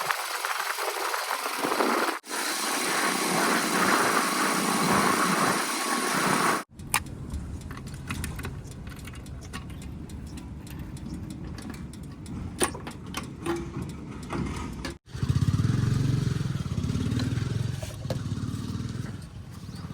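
Heavy diesel machinery running in several cut-together clips: a hissy stretch with little low rumble for the first few seconds, then a steady low engine sound with scattered clicks and knocks, and about 15 seconds in a louder engine that rises and falls under load.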